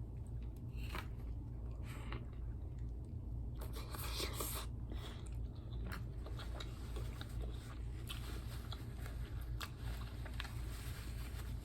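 Close-up eating of tacos: irregular crunching bites and chewing, busiest about four to five seconds in, over a steady low hum.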